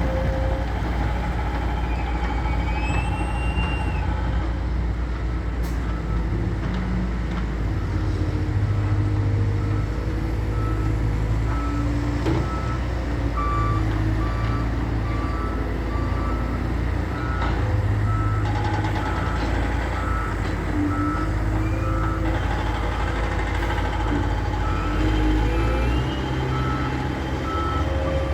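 Diesel engine of a construction loader running and working under varying load, with a reversing alarm beeping repeatedly from about halfway in as the machine backs up.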